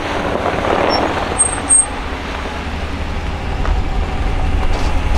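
Pickup truck towing a loaded car trailer drives slowly past on a snowy road, engine running and tyres on the road surface; the low rumble grows louder near the end as it comes close.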